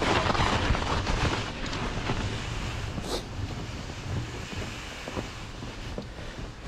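Gusting wind buffeting the microphone, loudest at first and easing off over the next few seconds, with a short high hiss about three seconds in.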